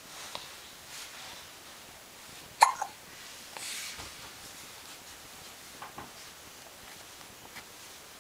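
A young child hiccuping: one sharp, loud hiccup about two and a half seconds in, with a few fainter hiccups before and after it.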